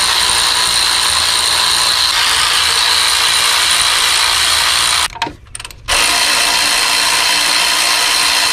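Cordless electric ratchet running steadily as it spins out E10 Torx bolts from the exhaust manifold heat shield of a 1.4L turbo engine. It stops for under a second about five seconds in, then runs again.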